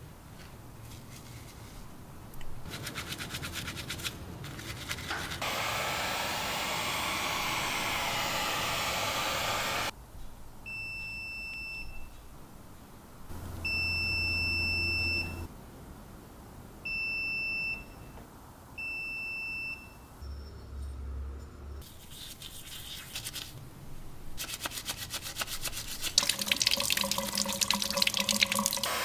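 Water running from a sink tap. Then four beeps, one high tone each lasting about a second, from an Extech EX520 digital multimeter's continuity tester, each signalling a closed circuit. Then the tap runs again over hands being washed, louder near the end.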